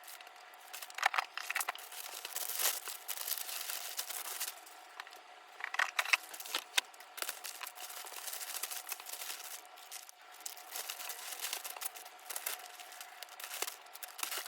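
Packaging material being handled by hand: irregular crinkling and rustling, with sharp clicks and short tearing sounds, loudest in a few bursts.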